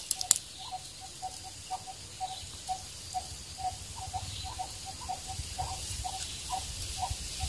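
A bird calling in a series of short, same-pitched pips, about two or three a second, some coming in quick pairs, faint over a quiet background.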